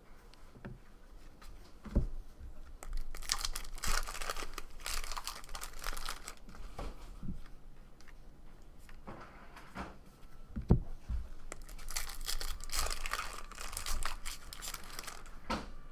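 Trading-card packs being torn open by hand, with the foil wrappers crinkling in two long stretches and a couple of sharp knocks as things are set down.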